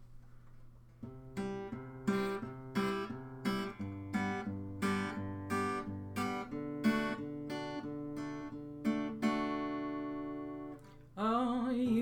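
Acoustic guitar strummed in a steady rhythm of chords, about one stroke every 0.7 seconds, then a chord left ringing out. A voice starts singing over the guitar near the end.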